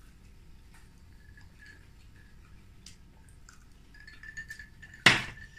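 Faint small clicks of eating and handling food, then a drinking glass set down on the table with one loud, sharp knock about five seconds in that rings briefly.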